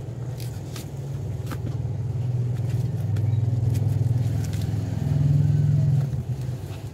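A low, steady engine hum that grows louder about five seconds in, with a few light clicks over it.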